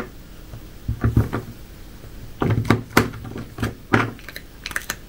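A cat chewing dried, not-quite-rusk bread: a string of irregular crunches and clicks, several close together near the end.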